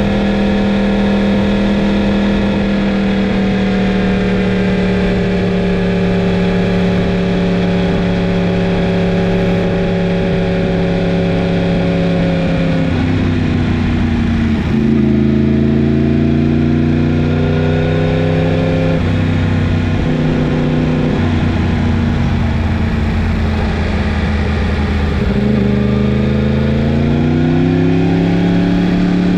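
Yamaha MT-10's crossplane inline-four engine running under way, its pitch easing slowly down, then dropping in steps about thirteen to fifteen seconds in as the bike slows and shifts down, and rising again near the end as it accelerates.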